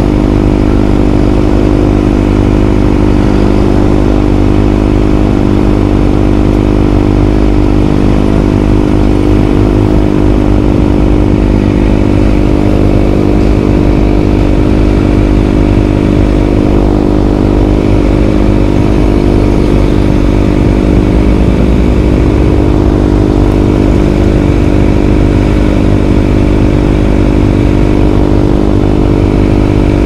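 Kawasaki ZX-25R's 249 cc inline-four engine idling steadily through an SC Project titanium exhaust.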